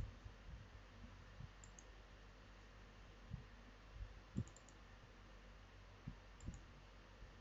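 Faint computer mouse clicks, a few of them close pairs as double-clicks, the loudest about halfway through, over near-silent room tone.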